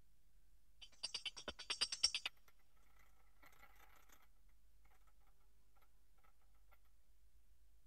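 A quick run of sharp clicks, about eight a second for a second and a half, followed by sparse faint crackles and ticks.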